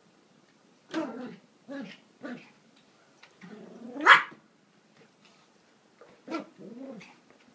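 Yorkshire terrier play-barking and growling while it chases and noses a basketball: a string of short, growly barks, with one louder bark that rises sharply in pitch about four seconds in.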